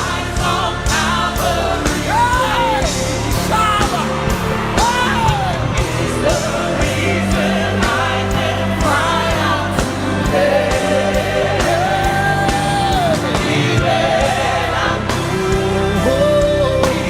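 Live gospel worship music: a band playing steady backing with a beat while voices sing long, gliding sung lines.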